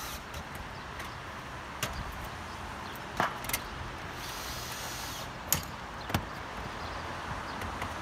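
About five sharp metallic knocks and clicks, spread out, the loudest about three seconds in and again past the middle. They come from a hand tool working standing-seam metal roof panels, over a steady outdoor hiss.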